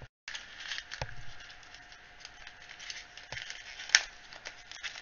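Crinkly plastic packet of small miniature skulls rustling as it is handled, with light ticks and taps and one sharper click about four seconds in. The sound cuts out for a fraction of a second at the start.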